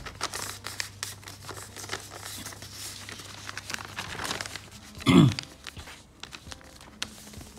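Sheets of paper being handled and shifted on a desk, rustling and crinkling with many small crackles, and one short loud thump about five seconds in.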